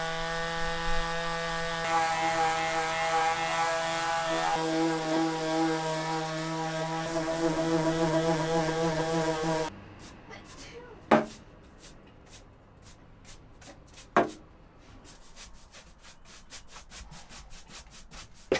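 Electric palm sander running steadily on wooden cabinet doors, a steady hum that stops abruptly about ten seconds in. Then quieter hand sanding of a plywood wall with sandpaper: a couple of sharp clicks, then a fast run of short rubbing strokes near the end.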